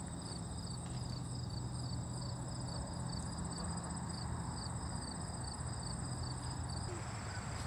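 Insects calling: a steady high-pitched trill with a shorter chirp repeating about three times a second, over a low steady hum.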